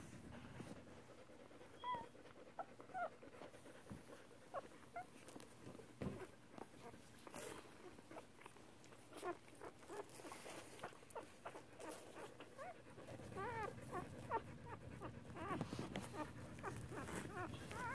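Newborn standard poodle puppies squeaking and whimpering faintly while nursing: short, high chirps that come more often in the last few seconds, with occasional soft rustles.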